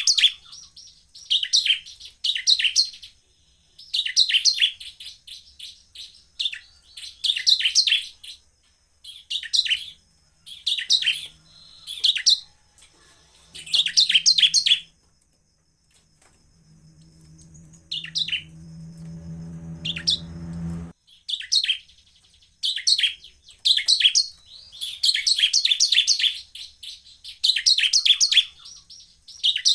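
Bar-winged prinia (ciblek) in full song: repeated short bursts of rapid, high chirps, one burst every second or two. About halfway through, the bursts pause while a low hum swells for about five seconds and then cuts off suddenly.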